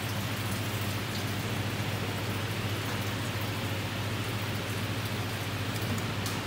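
Water vending machine's nozzle running a stream of chilled water into a glass beaker, a steady splashing hiss over a steady low hum. A sharp click near the end, as the stop button is pressed.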